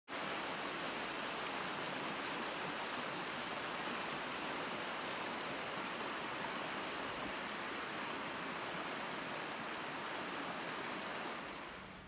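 Shallow rocky creek rushing over riffles between ice shelves, a steady sound of running water that fades out near the end.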